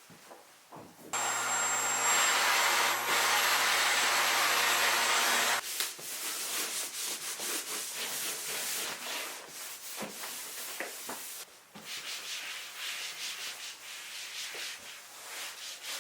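A small electric motor running with a steady whine and low hum for a few seconds. After that comes a rougher, uneven rubbing and scraping noise that keeps going, with a short break about two-thirds of the way in.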